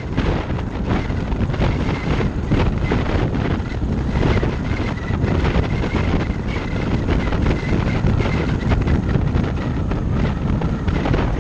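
Wind rushing over a GoPro Hero Session action camera mounted on the windshield of a moving car: a steady low rumble of buffeting, with a thin high whistle coming and going. The whistle comes from the camera being placed too close to the upper edge of the windshield.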